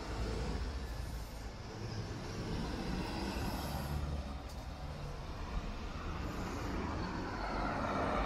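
Road traffic on a city street: a steady rumble of passing motor vehicles, swelling as a vehicle goes by near the end.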